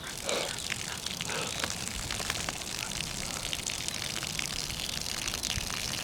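Lawn sprinkler spraying, a steady hiss with many small droplet patters.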